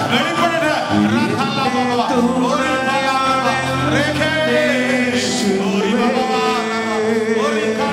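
A man singing a devotional song over instrumental accompaniment, with long held notes that glide between pitches over a steady sustained bass.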